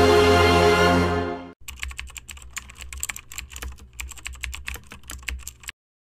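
Music that stops about a second and a half in, followed by a rapid, uneven run of keyboard-typing clicks, a sound effect for text being typed out on screen, which cuts off suddenly shortly before the end.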